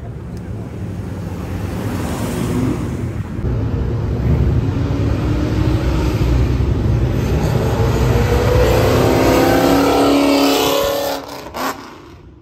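Ford Mustang engine accelerating hard toward the listener, the sound building and its pitch rising in a long pull. It drops away abruptly near the end.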